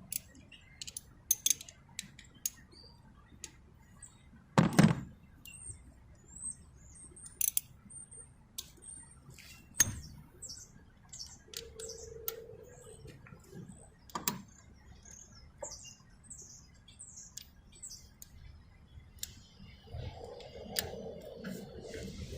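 Sporadic metal clinks and knocks of hand tools being handled, the loudest about five seconds in, while a small bird chirps repeatedly in the background through the middle.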